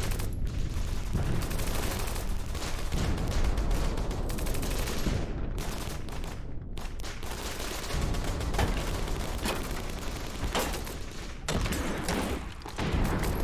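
Battle gunfire: a dense, continuous fusillade of rapid, overlapping rifle shots, with brief lulls and a quieter stretch near the end.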